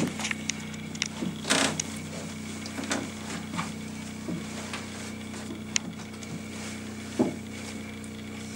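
Aura bass shakers fixed to a plywood seating platform, driven by a steady signal, setting the boards humming steadily. Scattered creaks and knocks come from the wooden seat as a man shifts on it, the loudest about seven seconds in.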